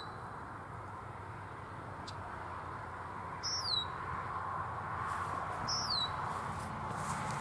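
A bird calling twice, each call a short falling chirp, over a steady rushing background noise that slowly grows louder.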